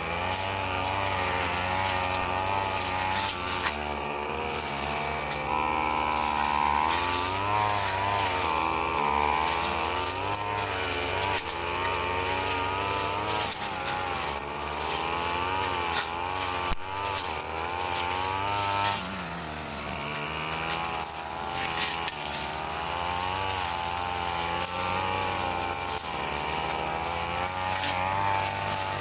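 Two-stroke brush cutter engine running continuously, its speed rising and falling as it cuts through grass.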